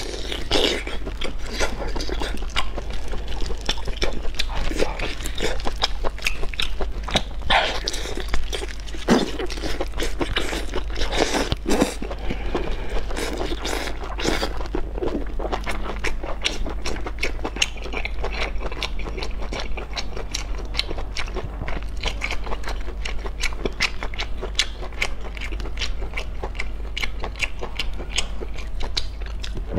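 Close-miked eating of cooked whole octopus: biting and chewing the tentacles, with dense wet mouth clicks and smacks throughout, over a steady low hum.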